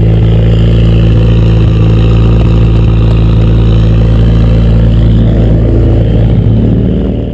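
Rallycross car engine idling steadily, with a fixed low hum, fading out near the end.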